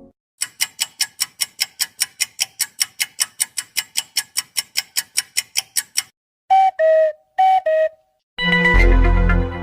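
A run of separate cartoon-style sound effects: rapid ringing dings, about four or five a second for some six seconds like an alarm clock, then two pairs of short falling two-note beeps, then a loud sustained musical chord with deep bass near the end.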